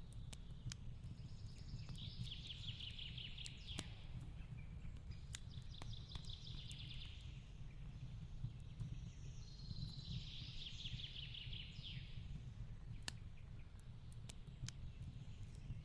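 Wood fire crackling with scattered sharp pops over a low steady rumble, while a songbird sings a fast trilled song three times.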